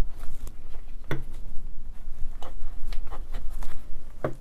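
Gloved hands working on a vintage Fein tapper's metal motor housing, trying to free an internal part: several scattered knocks and clicks of metal parts being handled, the loudest at the start and near the end.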